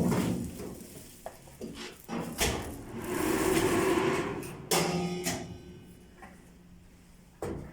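Manual shrink-wrap machine being worked: sharp metal clanks and knocks, three of them standing out, with a steady hum in between.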